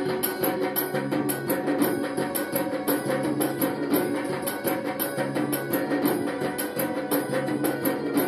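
Background music with percussion keeping a steady beat.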